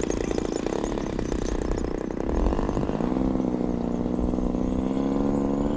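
Twin-cylinder two-stroke gas engine (DLE-40) of a large RC Cessna 182 model running on the runway, its pitch climbing steadily from about three seconds in as the throttle opens.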